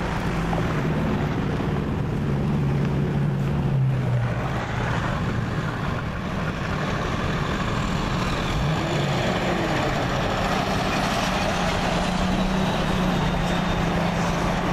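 A motor vehicle's engine running steadily while under way, mixed with heavy wind and running noise. Its pitch drifts slightly.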